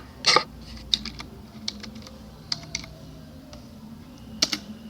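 Computer keyboard keystrokes and clicks, scattered and irregular, with a louder pair just after the start and single sharp taps spread through the rest.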